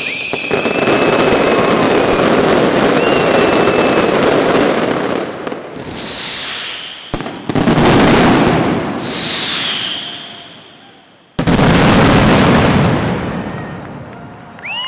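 Fireworks display: dense, continuous crackling and banging that dies away twice and restarts with sudden loud volleys, with falling whistles in between.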